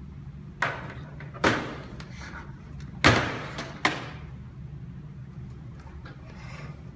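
Four sharp knocks of things being put down hard on a table, the loudest about three seconds in as a portable CD boombox is set down, over a steady low hum.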